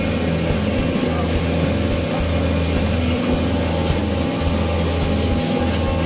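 Background music with low, held bass notes that change about every second.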